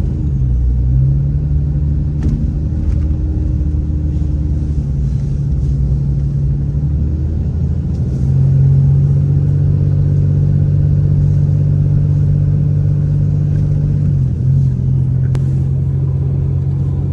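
Vehicle engine and road noise while driving, a steady low hum. The engine note rises about a second in, grows louder about halfway through, and dips briefly near the end, as with changes in speed or a gear change.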